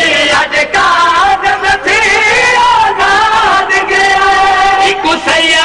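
A noha, a Shia mourning lament, being chanted by a voice in long held notes that bend and slide, with brief breaks between phrases.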